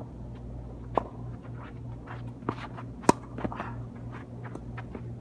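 Tennis rally on a hard court: sharp racket-on-ball hits about one second in and, loudest, about three seconds in, with smaller ball bounces and shoe scuffs between. A steady low hum runs underneath.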